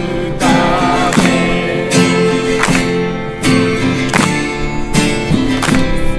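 Acoustic guitar strumming an instrumental passage between sung lines, with a steady beat about every three-quarters of a second; hands clap along.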